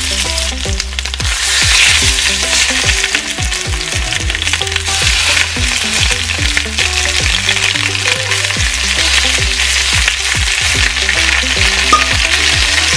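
Chicken thighs sizzling in hot oil in a stainless steel skillet as the pieces are laid in one after another, a steady spitting hiss.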